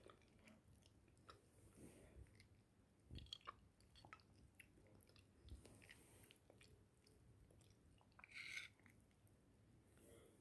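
Faint close-up chewing and biting of food, with scattered small clicks. A metal spoon scrapes against a ceramic plate in one short, louder scrape about eight seconds in.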